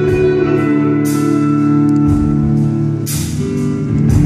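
Live band music without singing: electric guitar playing sustained chords over a drum kit, with cymbal strikes every second or so, recorded through a phone's microphone.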